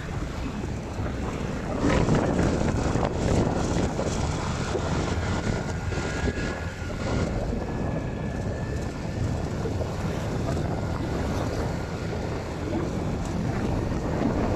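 Wind rushing over the microphone with the steady drone of a vehicle's engine and tyres while moving along a road in traffic.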